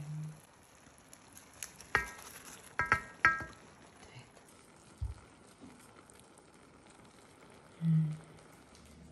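Metal spoon clinking against an enamel baking tray: one ringing clink about two seconds in and three more in quick succession about a second later, over a faint steady hiss. A dull thump follows, and two short low hums come at the start and near the end.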